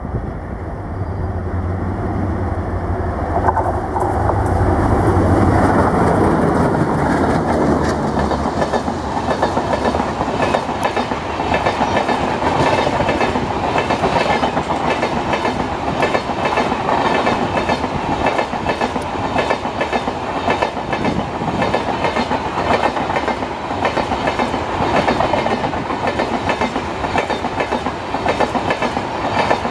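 Twin ALCO WDG3A diesel locomotives pass close by with their engines running, a low drone for the first several seconds. Then the coaches of a long passenger train roll past with a steady, rhythmic clickety-clack of wheels over the rail joints.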